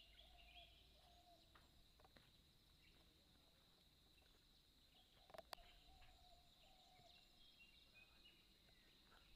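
Near silence: faint outdoor ambience with a steady high insect hum, two faint wavering calls, and a soft click about five and a half seconds in.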